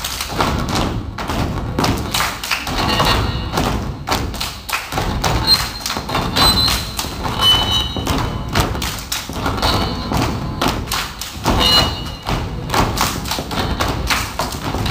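A children's step team stepping on a wooden stage floor: many feet stomping and thumping in a rhythm, with music playing along.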